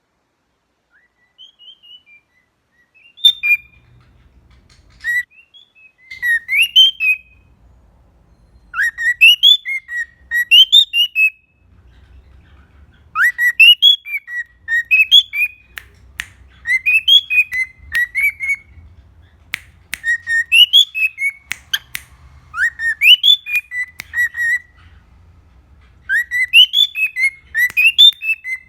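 Cockatiel whistling the same short phrase of rising and falling notes over and over, with brief pauses between phrases. A few sharp clicks sound in the middle.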